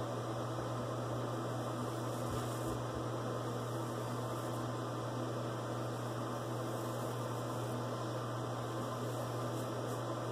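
Steady low electrical hum over a constant hiss, unchanging throughout.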